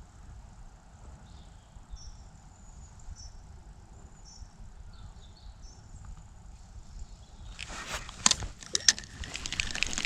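Breeze rumbling on the microphone, with faint bird chirps. About eight seconds in, a run of loud clicks and rustling close to the microphone.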